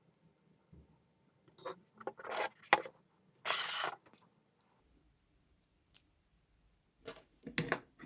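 Hand-work noises of small parts and tools being handled: a run of clicks and scrapes, a short hissing scrape about three and a half seconds in, and more clicks near the end.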